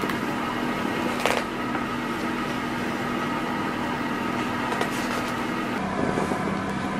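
A steady machine hum with a constant tone, dropping slightly lower in pitch about six seconds in. Over it, the pages of a hardcover picture book are turned: a brief papery swish about a second in and fainter ones near five seconds.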